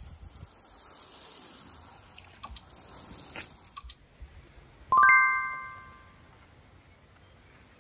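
Two pairs of sharp clicks, then a single bell-like ding that rings out and fades over about a second.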